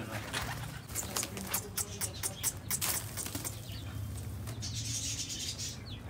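Pigeon wings flapping, with a quick run of sharp wing claps between about one and three seconds in.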